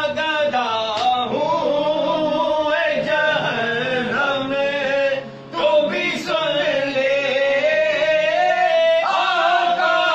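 A man's voice singing a naat, Urdu devotional verse in praise of the Prophet, in long drawn-out melodic phrases, with a short break about halfway through.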